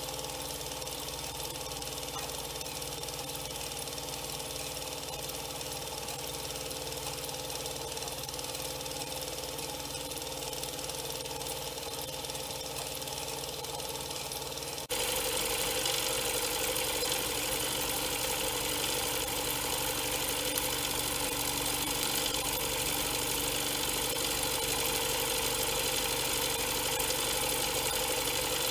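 Doll 320/5 toy vertical steam engine running steadily, driving a small model dredger through a spring belt. About halfway through, the sound gets louder and hissier.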